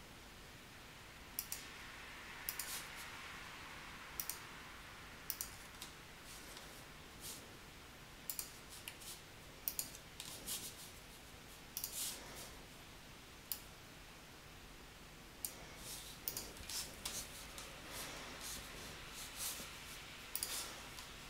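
Computer mouse clicking: faint, sharp, irregularly spaced clicks, some in quick pairs, over a low steady room hiss.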